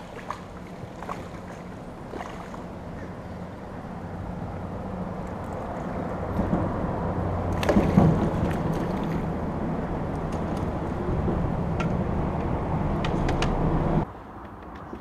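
A hooked black crappie splashing at the surface beside the boat as it is reeled in, over a steady low hum that grows louder. The biggest splash comes about eight seconds in, and the sound cuts off suddenly near the end.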